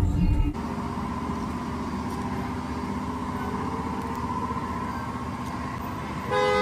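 A steady engine hum, like a motor vehicle running, begins about half a second in on a sudden cut from music. A short pitched sound comes near the end.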